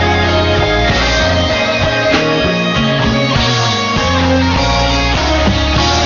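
Gospel music playing, with guitar prominent over a steady bass.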